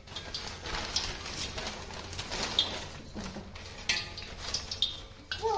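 Scattered light clinks and knocks of steel kitchen utensils and pans near a gas stove.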